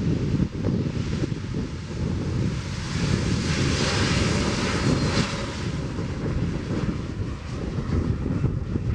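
Airbus jet airliner's engines during a landing: a continuous rush and rumble whose hiss swells about three to five seconds in and then eases off.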